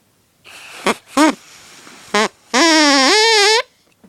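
Drinking-straw reed horn blown hard: a breathy start, a few short squawks, then one loud buzzing honk of about a second whose pitch wavers and rises near the end before it cuts off.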